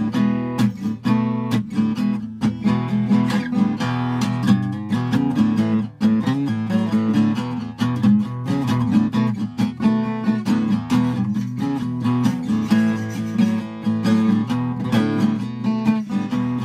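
Background music: acoustic guitar, plucked and strummed at a steady level.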